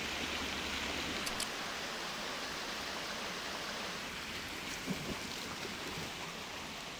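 Waterfall rushing, a steady even hiss of falling water, with a couple of faint clicks about a second in and small knocks near five seconds.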